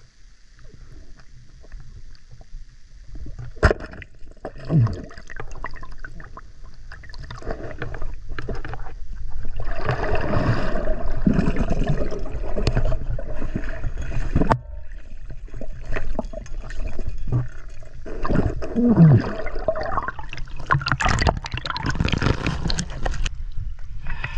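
Water sloshing and gurgling, with scattered knocks.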